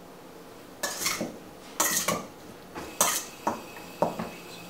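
A metal spoon clinking and scraping against a stainless steel mixing bowl as chicken wings are stirred in it: a series of short, irregular clinks starting about a second in.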